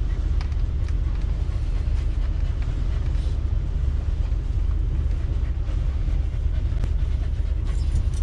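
Steady low rumble in the cab of a stopped 1990 Fleetwood Bounder motorhome, from its idling engine and strong wind buffeting the vehicle, with a few faint ticks.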